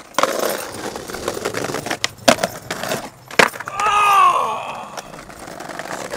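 Skateboard wheels rolling over brick pavers, with several sharp clacks of the board popping and landing during a street trick. About four seconds in, a person lets out one loud yell.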